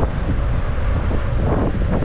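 Wind buffeting the microphone of a camera riding on a moving bicycle, a steady low rumble, with road and traffic noise beneath it.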